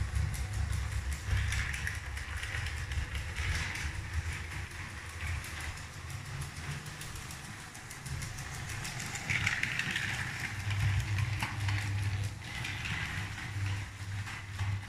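A Lego 12V electric train from set 7725 running on its track: a motor whir with a fast, continuous clatter of wheels on the rails, growing louder and fading twice.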